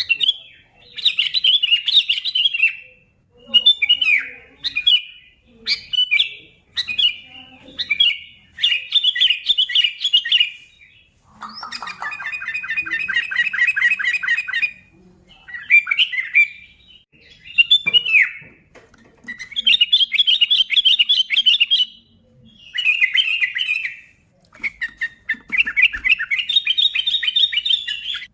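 Sooty-headed bulbul (kutilang) calling over and over in short, quick phrases about a second apart, with a longer run of rapid chattering notes about halfway through.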